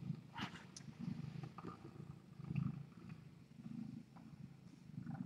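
Domestic tabby cat purring softly while being stroked, the low purr swelling and easing with each breath, about once every second and a quarter. A couple of faint rustles come in about half a second in.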